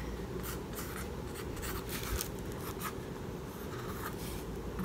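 Paintbrush scratching against a wooden letter in short, irregular strokes as paint is worked onto it.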